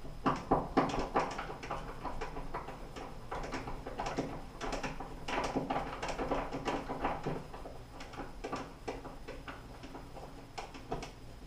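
Rapid, irregular scratching and clicking of a tool point scraping a mark into the painted drywall through a towel-bar bracket's screw hole, coming in clusters and thinning out near the end.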